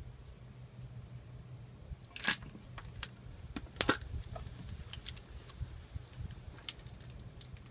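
Hands handling a small object under the truck: a scattering of sharp clicks and clacks, the two loudest about two and four seconds in, over a steady low hum.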